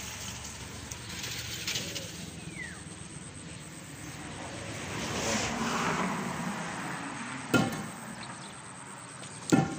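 Steady outdoor background noise. A passing motor vehicle swells and fades in the middle, and two sharp knocks come near the end.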